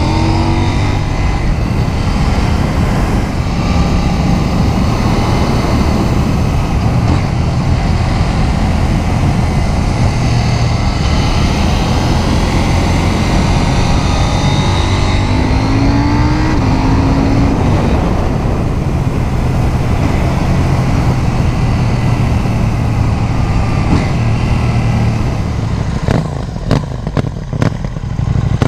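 Onboard sound of a KTM 790 Duke's parallel-twin engine under way, rising and falling in pitch with throttle and gear changes. Near the end the engine sound drops and a few sharp knocks come through.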